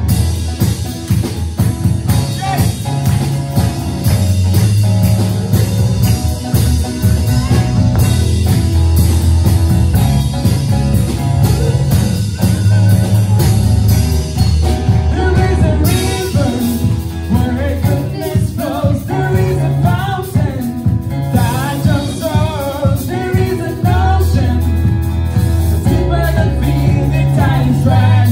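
Band music with singing, over a steady drum-kit beat, bass and guitar. The voice stands out more clearly in the second half.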